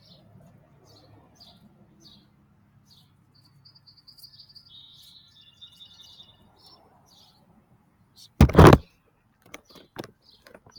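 A bird chirping over and over, short high chirps about twice a second, with a brief warbling trill about four seconds in. A loud thump about eight and a half seconds in, then a few light clicks.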